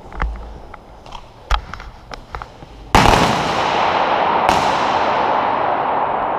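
A few sharp airsoft gun shots, then about three seconds in a sudden loud, steady hissing rush that keeps going, with a second sharp burst in it about a second and a half later.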